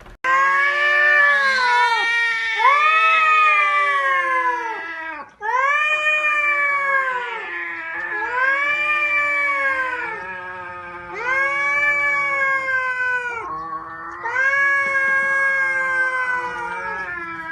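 A domestic cat yowling loudly over and over: long, drawn-out calls that rise and fall in pitch, following one another with hardly a break.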